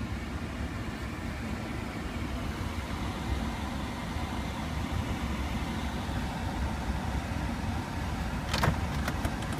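Lamborghini Aventador's 6.5-litre V12 idling as a steady low rumble, heard from inside the car, with a single short click near the end.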